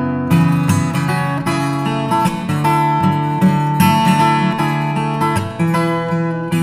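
Background music: strummed acoustic guitar playing a steady chord progression.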